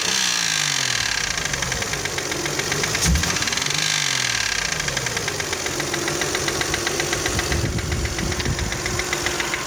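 Toyota 1MZ-FE V6 engine idling with a rapid, even knock that came on at the first start after spark plugs were changed and the intake manifold was off; the owner found no damage on the pistons, and when it is quiet the knock seems to come from the left. A single sharper thump about three seconds in.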